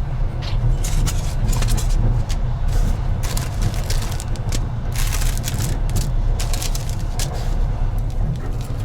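Steady low rumble of a moving passenger train, with bursts of crinkling and rustling over it as an instant noodle pot's plastic wrapping and lid are pulled open.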